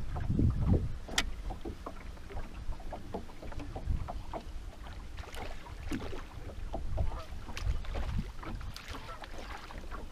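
Wind rumbling on the microphone in gusts, strongest in the first second, with small waves lapping and slapping against a bass boat's hull in scattered short splashes and clicks.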